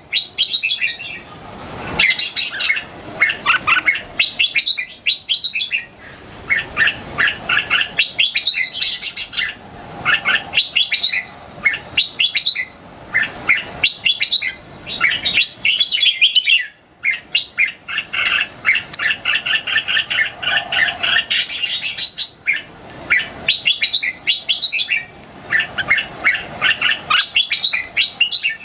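Young red-whiskered bulbul singing short, rapid, whistled phrases over and over, with a brief pause a little past halfway; a young bird already singing against other bulbuls.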